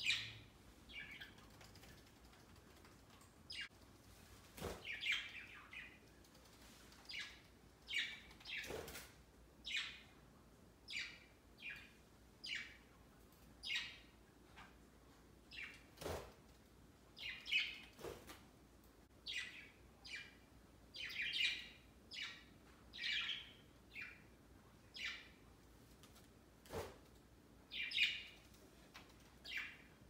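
Budgerigars chirping in a steady run of short, high calls, about one or two a second, with a few sharp taps among them.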